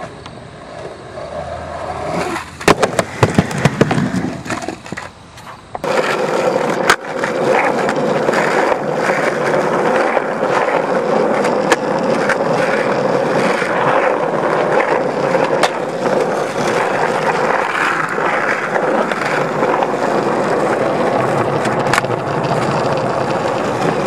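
Skateboard wheels rolling steadily on an asphalt path, with a few sharp board clacks in the first few seconds and occasional clicks through the roll.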